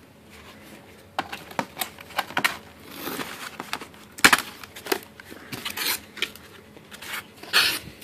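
Cardboard box and packaging being handled and opened: irregular rustling and crinkling with scattered clicks and knocks, the sharpest knock about four seconds in.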